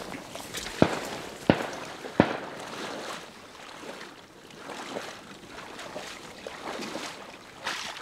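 Three sharp shotgun shots in quick succession, about two-thirds of a second apart, in the first few seconds; then water sloshing around waders as a hunter wades through shallow water.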